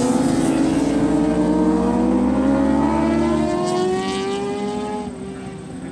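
Racing motorcycles accelerating hard down the straight, several engines rising steadily in pitch together. The sound fades in the last second or two as the bikes pull away.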